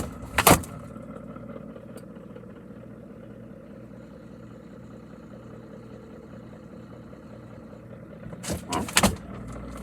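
Refrigerator door shutting with a thump, then a steady low hum with the door closed, muffled and without treble. Near the end, a few knocks and thuds.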